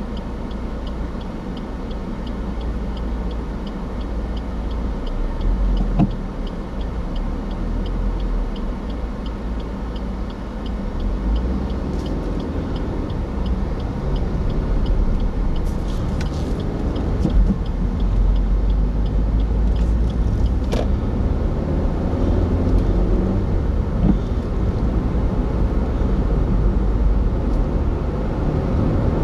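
Steady road and engine noise inside a moving car, growing somewhat louder after about ten seconds as it picks up speed. A turn-signal indicator ticks evenly through roughly the first twelve seconds, and a few sharp knocks come through later.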